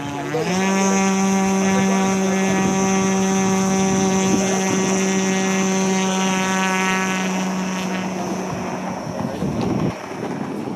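Radio-controlled model cargo plane's motor and propeller running at full power. The pitch steps up just after the start as the throttle is opened and then holds steady while the plane is held on the runway. Near the end the steady tone breaks up and fades as the plane is released on its takeoff run, with some wind noise.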